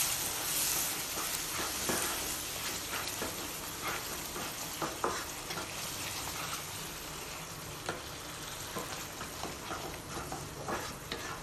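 Thick onion-tomato masala sizzling in oil in a kadai while it is stirred with a wooden spatula, with scattered scrapes and taps of the spatula against the pan. The masala is being sautéed until the oil separates at the sides.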